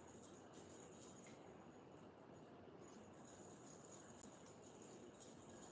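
Near silence: faint room tone with a steady high hiss.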